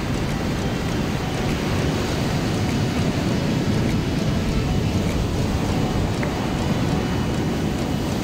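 Wind buffeting the microphone over the wash of breaking surf, a steady low rush with no let-up.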